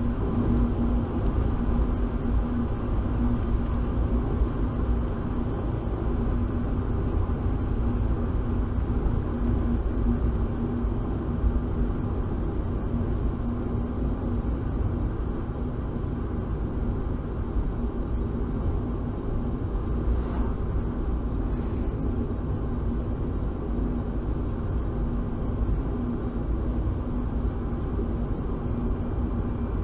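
Car engine and road noise heard from inside the cabin while driving slowly in city traffic: a steady low rumble with a constant hum.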